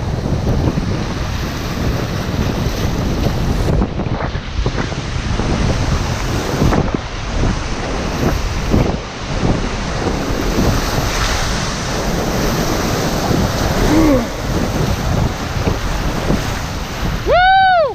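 Rushing whitewater of a class 3 rapid, with wind buffeting the microphone, as an inflatable kayak runs through it. Near the end comes a short, loud whoop that rises and falls in pitch.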